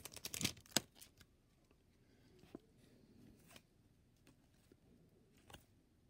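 Baseball cards being handled and thumbed through by hand: a cluster of quick rustles and clicks in the first second, then only faint, occasional ticks as the cards slide over each other.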